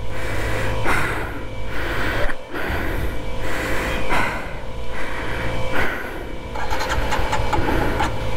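Heavy, gasping breaths every second or two from a rider straining to lift a fallen motorcycle, over a steady low engine hum. Near the end there is a quick run of fine clicks.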